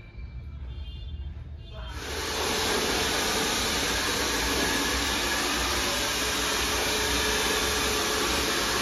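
Handheld hair dryer switched on about two seconds in, then blowing steadily with an even, loud rushing hiss.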